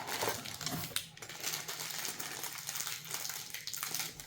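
Handling of small hard objects and packaging: a scatter of light clicks and knocks with some rustling.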